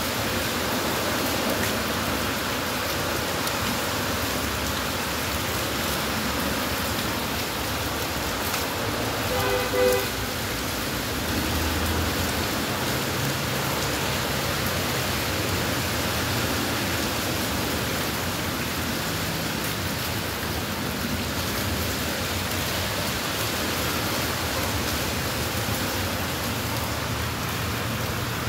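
Heavy rain pouring onto a wet paved sidewalk and street, a steady hiss of rainfall and splashing. About ten seconds in, a short horn toot sounds once, and a low traffic rumble comes and goes after it.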